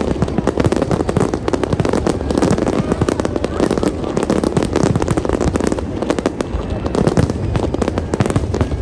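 Fireworks exploding in a dense, continuous barrage of overlapping bangs and crackles.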